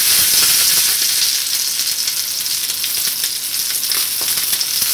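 A steady, loud crackling hiss with no speech over it.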